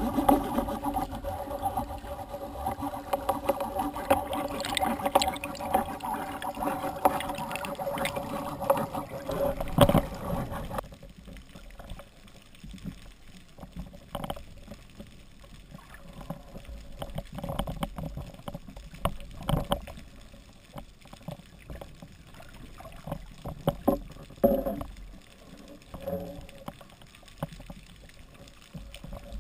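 Muffled underwater sound of a speared grouper and a speargun being handled: scattered knocks and scrapes through the camera housing. A steady hum of several tones runs for about the first ten seconds, then stops.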